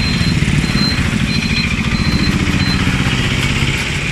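A small motorcycle engine running close by, with the rapid low pulsing of its firing over general street traffic. A faint high-pitched beep repeats at an even pace through the first part.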